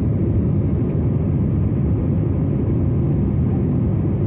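Jet airliner taking off, a steady low rumble of engines and rushing air.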